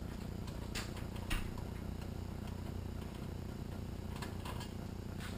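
A few faint, scattered clicks and light taps of metal parts being handled in a rail buggy's engine bay, over a steady low background hum.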